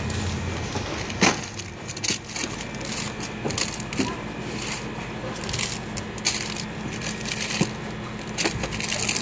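Irregular clicks, knocks and crackling from items being handled around a metal wire cart, over a steady low hum.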